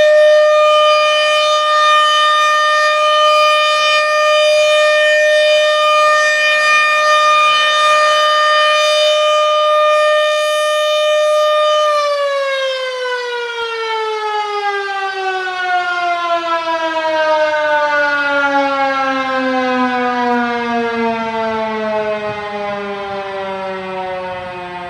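American Signal RM130 mechanical tornado siren sounding a steady high tone during a weekly test, then about halfway through winding down, its pitch sliding slowly lower as it fades.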